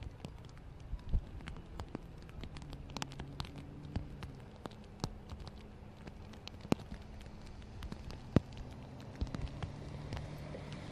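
Rain falling, with scattered sharp drop ticks at irregular moments over a faint patter. Under it runs a low steady engine hum.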